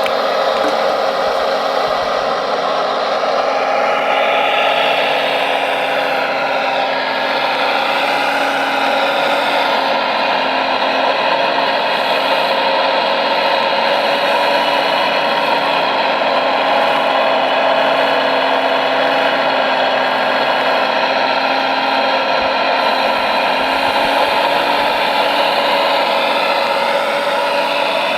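Whine of radio-controlled model machines' electric motors and gearing, running steadily, with the pitch gliding up and down several seconds in and again near the end.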